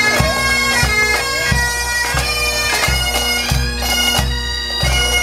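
Bagpipes playing a marching tune over a steady drone, with a bass drum beating evenly about three times every two seconds.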